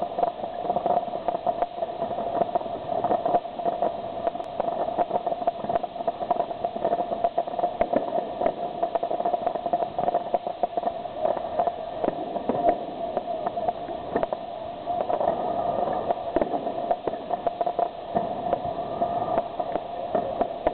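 Aerial fireworks display: a dense, unbroken barrage of bangs and crackles, many reports a second with no pause.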